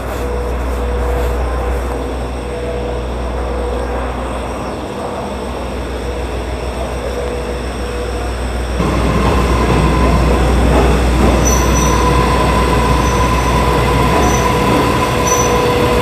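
Train running on rails: a steady rolling noise with a held tone, louder from about nine seconds in, with short high wheel squeals near the end.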